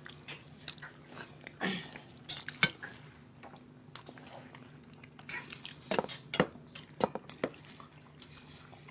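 Hands eating rice and fish curry from stainless steel plates: scattered clinks and taps on the steel as food is scooped and mixed, with chewing. The sharpest clink comes about two and a half seconds in, and a run of clinks about six to seven and a half seconds in.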